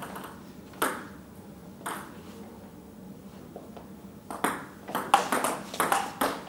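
Table tennis ball being played: two single clicks of the ball about a second apart, then from about four and a half seconds in a fast rally, the ball clicking off bats and table several times a second.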